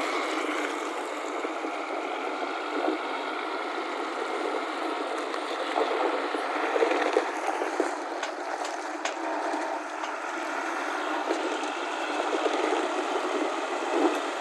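Engine of a JCB excavator running steadily, with scattered clanks and knocks about halfway through and again near the end.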